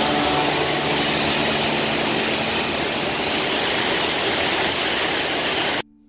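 Steady roar of Düden Waterfall's falling water, cutting off abruptly near the end.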